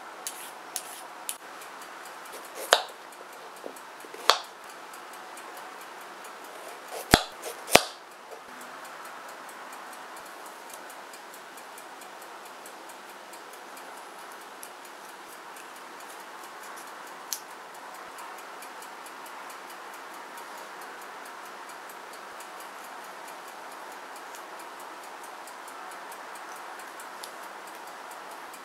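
Vegetable peeler and chef's knife working a raw carrot over a plastic cutting board: a few sharp clicks and taps in the first eight seconds, the four loudest about two to three seconds apart, then only scattered faint ticks of the knife cutting grooves over a steady faint background.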